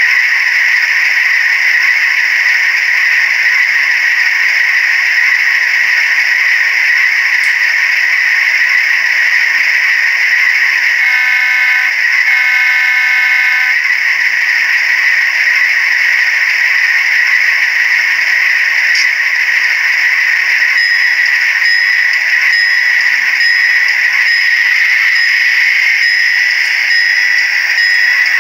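HO-scale GE U28B model's onboard sound system playing a diesel locomotive engine idling, steady and rattly with little bass. About halfway through, two horn blasts sound. From about three-quarters through, a bell rings steadily as the locomotive prepares to move off.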